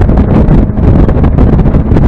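Mazda MX-5 at speed on track: engine and road noise buried under loud, rough wind buffeting on the microphone.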